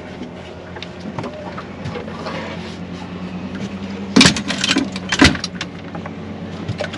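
An engine running steadily at a low hum, with two loud bursts of knocking and clatter about four and five seconds in.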